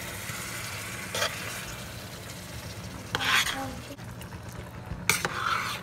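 A spoon stirring thick eggplant and egusi stew in a stainless steel pan, with a few louder scraping strokes, the loudest about three seconds in, over a steady sizzle of the stew cooking.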